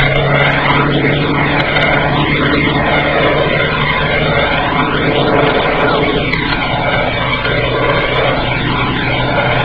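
Steady in-cabin drone of a car driving at speed, a low engine hum under constant road and wind noise, picked up by a dashcam microphone behind the windscreen.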